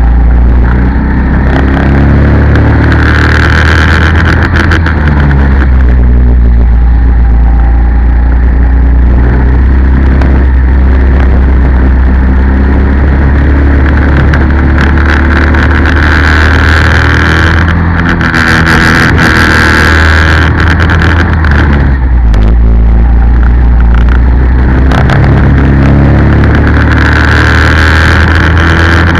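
Go-kart engine heard from a camera mounted on the kart, loud, with the revs rising and falling repeatedly as the kart laps the circuit.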